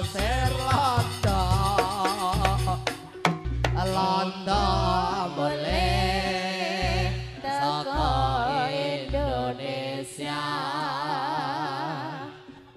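Live Javanese folk music: a singer with a wavering voice over a repeating low drum beat and percussion, dropping away near the end.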